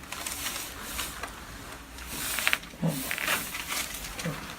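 Rustling and scuffing of body and clothing against a chiropractic treatment table during a hands-on adjustment, with a denser burst of scuffing about halfway through.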